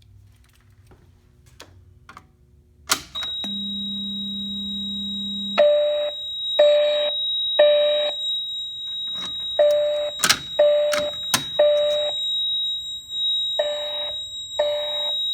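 Notifier fire alarm system going into alarm. About three seconds in there is a click, then a steady high-pitched beep and a brief low tone. After that the voice-evacuation speakers sound the temporal-three evacuation tone: three short pulses, a pause, three more, with a few sharp clicks among them.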